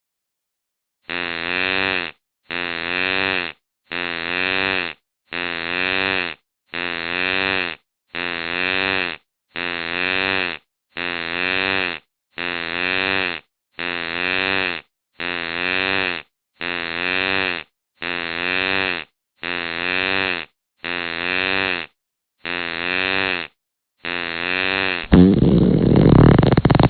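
Fart sound, the same low, wavering buzz about a second long repeated about seventeen times, a little more than once a second, with dead silence between, like a looped clip. Near the end a louder, rougher, noisier sound takes over.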